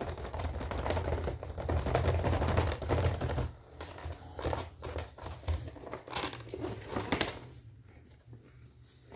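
Hands tapping, rubbing and gripping the clear plastic blister packaging of a toy kitchen set: a rapid crackle of clicks and crinkles for the first few seconds, then scattered taps and crinkles that fade out about two seconds before the end.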